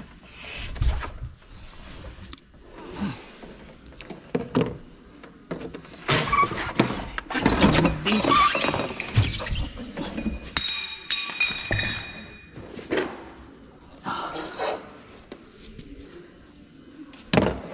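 Full-size alloy spare wheel and tyre being hauled out of a BMW X5's cargo well and set down on the floor: a series of thunks, knocks and scraping. A brief high squeak comes about eleven seconds in, and a heavy thunk near the end.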